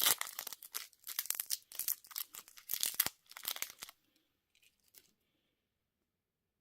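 Candy wrapper being torn open and crinkled, in irregular bursts of crackling that stop about four seconds in, followed by a couple of faint rustles.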